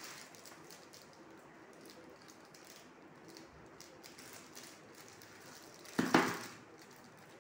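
Plastic wrapping crinkling faintly as a wrapped lunch box is handled. About six seconds in, a single louder bump and rustle as the wrapped box is set down on the table.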